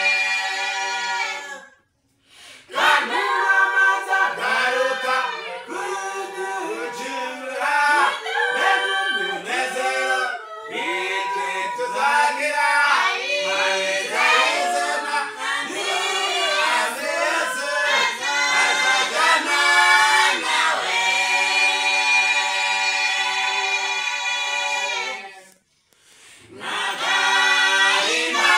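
A small mixed group of men and women singing a cappella in harmony. Phrases end on long held chords, with short breaks about two seconds in and again near the end.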